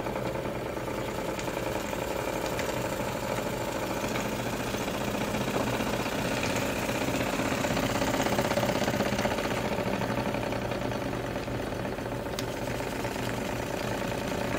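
Antique Bing vertical toy steam engine with a thick-walled, spirit-fired boiler, running steadily under steam: a fast, even mechanical clatter over a steady hum.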